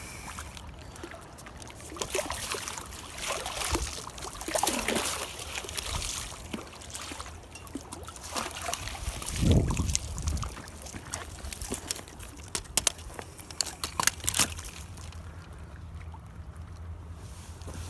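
River water sloshing and trickling in irregular surges, as a hooked small trout is handled in the shallows. A cluster of sharp clicks and knocks comes about two-thirds of the way through.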